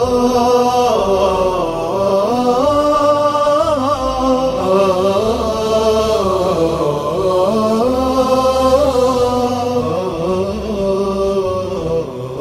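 Background music: an Arabic devotional nasheed, a singing voice carrying a long, wavering melody.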